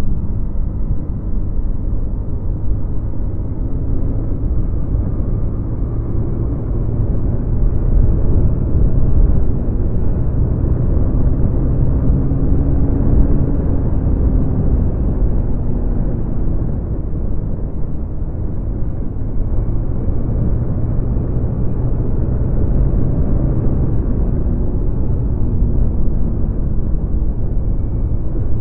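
Honda Dio scooter's small single-cylinder engine running with its stock exhaust while riding, the engine note drifting slowly up and down with throttle. A heavy low rumble of wind on the phone microphone covers much of it.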